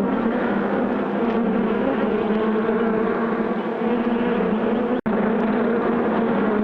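Honey bees buzzing in a steady, wavering hum. The sound cuts out for an instant about five seconds in.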